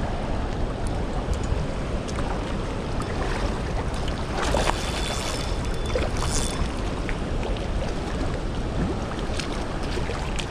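Fast-flowing river water rushing past the bank, with wind on the microphone. A hooked walleye splashes at the surface close in, about four and a half seconds in and again around six seconds.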